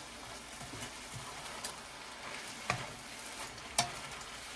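Mushrooms sizzling in a pan as they are stirred: a steady hiss, with a few knocks of the stirring utensil against the pan, two louder ones in the second half.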